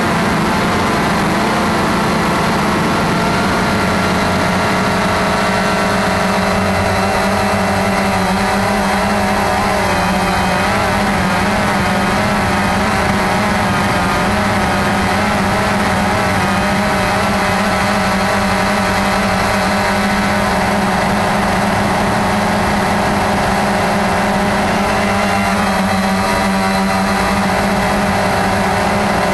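Cheerson CX-20 quadcopter's motors and propellers buzzing steadily in flight, heard through its onboard camera, the pitch wavering slightly as the motor speeds adjust.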